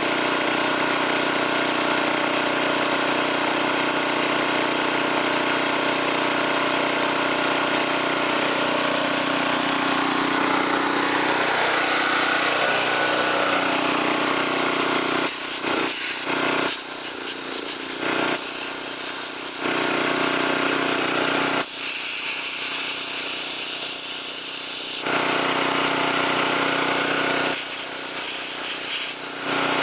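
Snowblower's small gasoline engine running steadily at a constant level, suspected of a sticking carburetor float valve. A loud hiss over it drops out and comes back several times in the second half.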